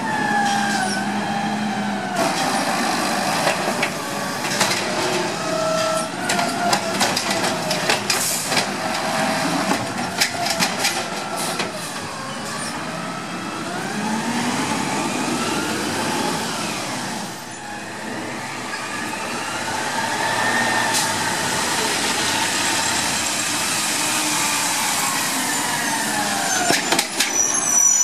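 CNG-powered Peterbilt side-loader garbage truck's engine revving up and down as it runs the hydraulics of its Amrep automated arm. Knocks and clanks of carts being gripped, dumped and set down come mostly in the first half.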